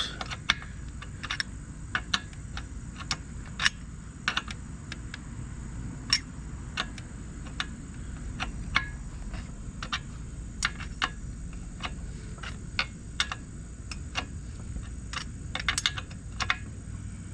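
Sharp, irregular metal clicks, about one or two a second, from a wrench tightening a motor-mount bolt on a motorized bicycle engine.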